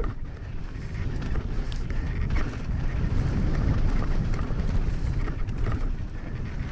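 Wind buffeting a helmet-mounted camera's microphone as a mountain bike descends a loose dirt and gravel trail at speed. Tyres crunch on the gravel, with small scattered clicks and rattles from the bike.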